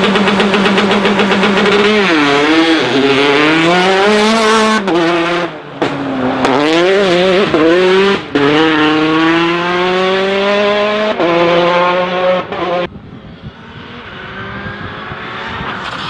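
Rally car engines at full effort. An engine is held at steady high revs for about two seconds, then its note repeatedly climbs and drops as the car accelerates hard through quick gear changes. The sound breaks off abruptly several times. After about thirteen seconds it is quieter, with a fainter engine note rising as another car approaches.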